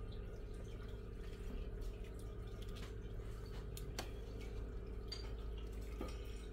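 Soup being served: liquid dripping and splashing with a few light clicks of a utensil against the pot or bowl, over a steady low hum.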